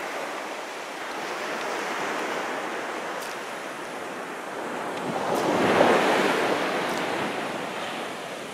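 Small waves washing onto a sandy beach, a steady wash that swells to a louder break about six seconds in and then eases off.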